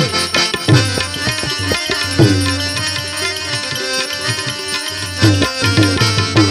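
Instrumental interlude of a Gujarati devotional bhajan: a hand drum plays a rhythm whose bass strokes bend down in pitch, over sustained melody instruments, with no singing.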